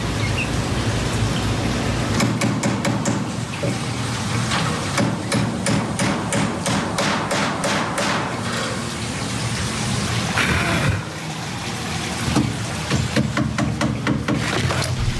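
Hammer driving metal cap nails through galvanized hardware cloth into the wooden coop frame: runs of quick strikes, about four a second, over a steady hiss.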